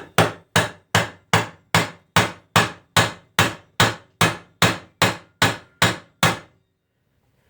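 A hammer strikes the red-hot steel screwdriver shaft about seventeen times at a steady pace of roughly two and a half blows a second, flattening it. Each blow is a sharp metal strike with a short ring. The hammering stops about a second before the end.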